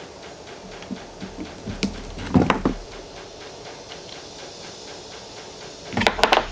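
Hand tools and small scuba regulator parts being handled on a workbench: a short cluster of clicks and knocks about two seconds in, and another near the end.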